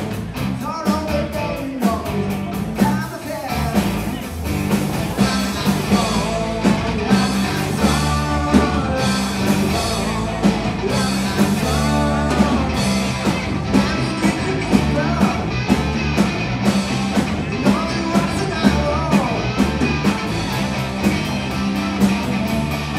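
Live blues-rock band playing: electric guitar, bass guitar and drum kit with a steady beat, with a voice singing over them.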